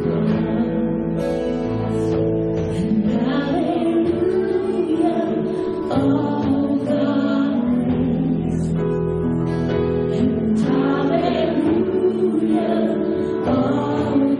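A live worship band playing a worship song, with voices singing over keyboard and guitars.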